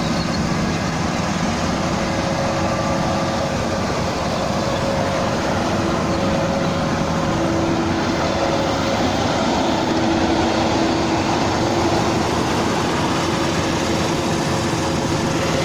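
Rice harvester running steadily, a continuous machine noise with a steady hum.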